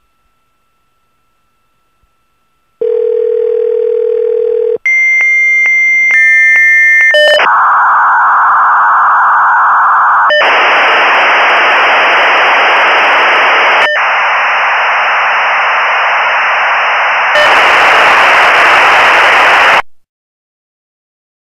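Dial-up modem connecting. A steady dial tone starts about three seconds in, then comes a run of high pitched handshake tones and chirps, then loud harsh hissing noise in several shifting stages. The hissing cuts off suddenly near the end.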